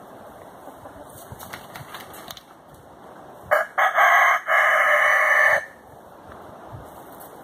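A rooster crowing once, loud, starting about three and a half seconds in and lasting about two seconds.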